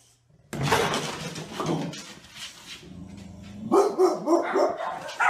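Dog barking, starting suddenly about half a second in, with higher, pitched calls near the end.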